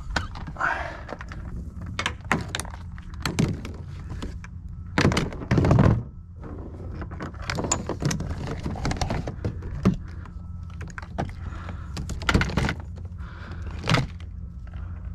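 Kayak motor gear being handled and set down: repeated knocks and thunks of hard plastic parts against a plastic crate, the loudest a pair of heavy thuds about five and six seconds in, over a steady low rumble.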